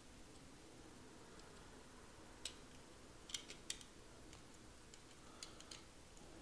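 Near silence broken by a few faint, light metallic clicks, in two small clusters, as the fulcrum screw of a small automatic lighter is worked through its hinge.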